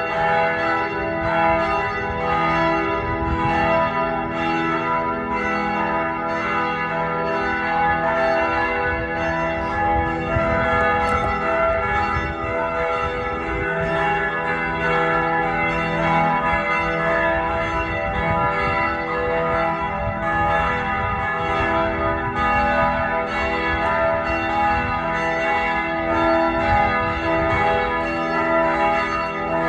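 A peal of church bells ringing continuously, several bells struck in quick succession with their tones overlapping and ringing on.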